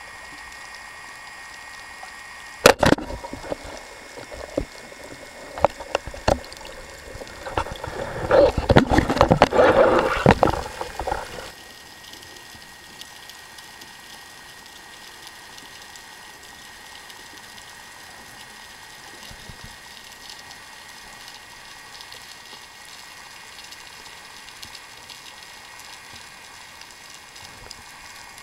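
Underwater recording: a sharp knock about three seconds in and a few smaller clicks, then several seconds of loud bubbling and rushing water, settling into a steady faint underwater hiss.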